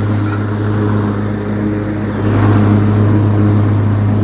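Cub Cadet riding lawn mower's engine running steadily while mowing, with a low, even hum that dips slightly and picks up again about halfway through.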